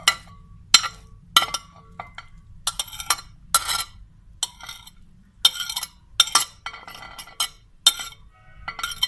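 Metal spoon clinking and scraping against a ceramic plate and a glass mixing bowl as chopped vegetables and mashed potato are pushed off the plate: a string of sharp ringing clinks, some followed by short scrapes.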